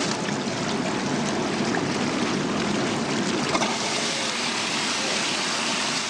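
Water churning and bubbling steadily in the stainless steel tank of a vegetable washing machine as it washes a load of vegetables.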